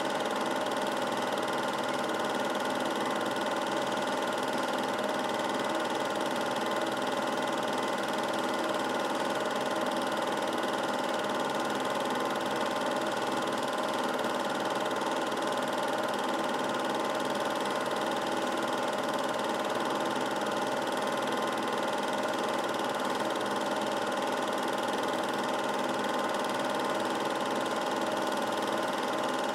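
Film projector running: a steady mechanical hum and whirr with several fixed tones, unchanging throughout.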